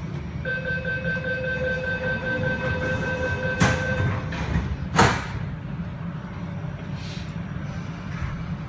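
East Rail line train's door-closing warning: a rapid high beeping tone for about three and a half seconds, then the sliding passenger doors shut with a knock and a louder thud about five seconds in, over the steady low hum of the stopped train.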